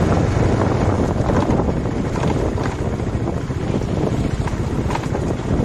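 Motorcycle engine running at riding speed, nearly buried under heavy wind buffeting on the microphone.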